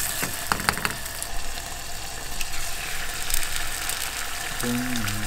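Hot oil with chilli powder sizzling in a small ceramic non-stick frying pan, as a wooden spoon stirs it and an egg goes in to fry. A few sharp clicks come about half a second in.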